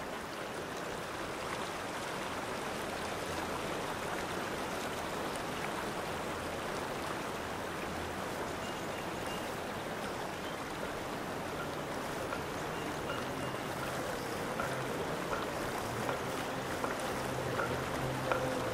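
Running water of a stream, heard as the opening of a music track, with low droning notes gradually joining in under it.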